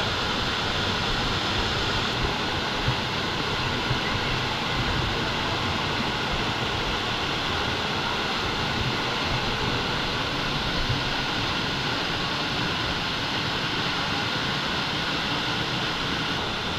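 Dry Falls, a waterfall on the Cullasaja River, pouring steadily: an even, unbroken rush of falling water.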